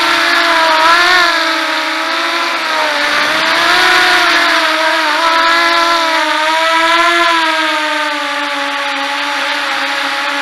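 Walkera Runner 250 quadcopter's four brushless motors and propellers whining, the pitch rising and falling with throttle, over a steady hiss of rushing air, heard from the drone's onboard camera.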